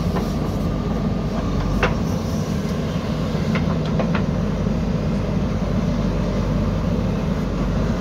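Diesel engine of a JCB 3DX backhoe loader running steadily under load as it works its bucket in soil, with a few short sharp knocks around two and four seconds in.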